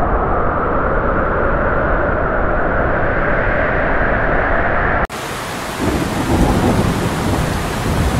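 A battery toy train's small motor whirring steadily, cut off abruptly about five seconds in. It gives way to a rain-and-thunder sound effect: a steady hiss of rain with a low rolling thunder rumble.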